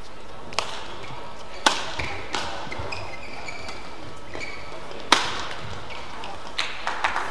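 Badminton rackets striking a shuttlecock during a rally: sharp cracks at uneven gaps of one to three seconds, the loudest about five seconds in, with a quick run of hits near the end. Court shoes squeak on the mat between shots.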